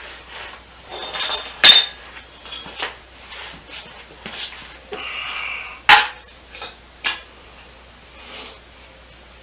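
Metal hand tools clinking and clanking against each other and on the steel of an engine and transmission assembly: a few sharp metallic knocks, the loudest about two and six seconds in, with a short scraping noise about five seconds in.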